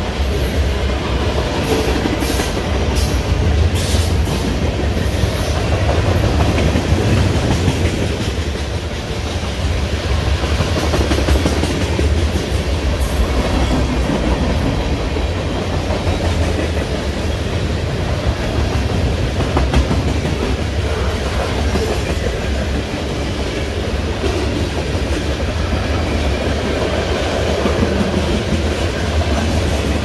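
Heavy CN freight train rolling past, its cars' wheels clacking over the rail joints over a steady low rumble.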